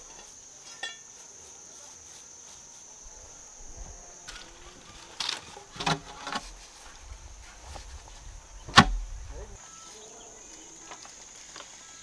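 Steady high-pitched insect buzz, with several knocks of bamboo poles being handled around the middle and one sharper, louder knock later on.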